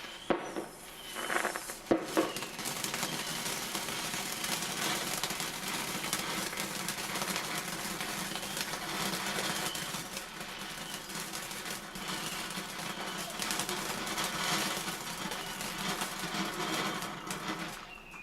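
Bonfire burning with a steady dense crackle of rapid small ticks, after a few louder sharp pops in the first couple of seconds.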